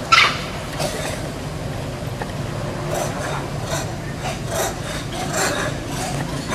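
Leaves and branches rustling and scraping in irregular bursts as a monkey climbs through the tree, with a sharp crack or snap right at the start, over a steady low hum.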